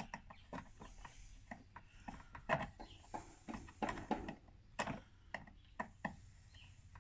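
Hand tools and small mower parts being handled, giving irregular small clicks and taps, with sharper knocks about two and a half seconds in and near five seconds.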